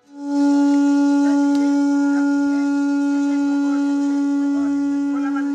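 A conch shell trumpet blown in one long, steady, loud note that starts abruptly.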